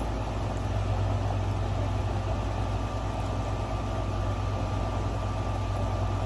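A steady, low mechanical hum with a faint high whine, unchanging throughout.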